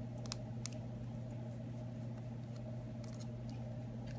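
Faint, scattered small clicks and ticks of a precision screwdriver backing out the tiny screws inside an iPhone 6, over a steady low hum.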